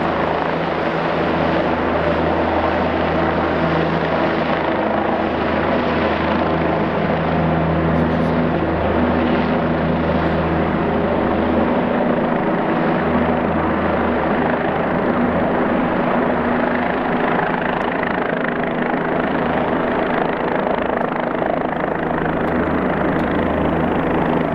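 Helicopter flying with a rescue load on a long line, its rotor and turbine engine running steadily.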